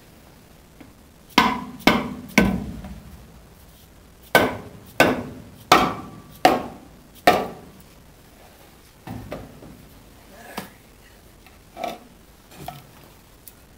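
Hammer striking a trailer air spring's mounting to knock the bag loose: eight sharp, ringing blows, three quick ones and then five more, followed by a few lighter knocks and clunks as the bag is worked out of its mount.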